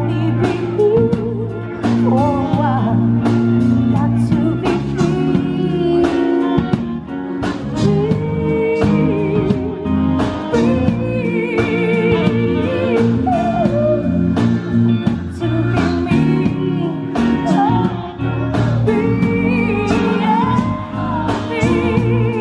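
Live band playing a song: a woman singing into a microphone over electric guitar, bass guitar and drum kit.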